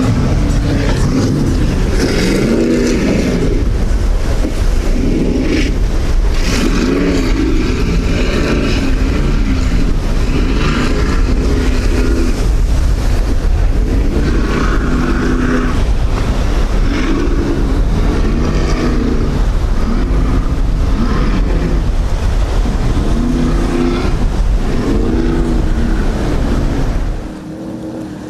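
Cigarette offshore speedboat engines running hard, their pitch rising and falling every couple of seconds as the boats cross the inlet waves, with wind and spray noise; the sound drops away suddenly near the end.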